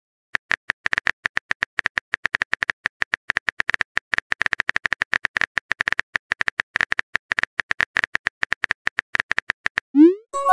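Phone keyboard key-click sounds from a texting app, rapid and irregular, as a message is typed out letter by letter. About ten seconds in, a short rising whoosh as the message is sent.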